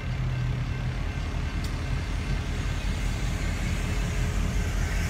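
Several Union Pacific diesel locomotives passing slowly over a road crossing, their engines running with a steady low pulsing drone. A single short click about one and a half seconds in.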